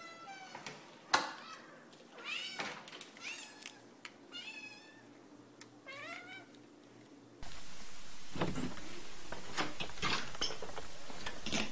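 A house cat meowing repeatedly: a series of short meows that bend in pitch, with one sharp knock about a second in. About seven seconds in, the sound cuts to a noisier recording with steady background noise and a few thumps.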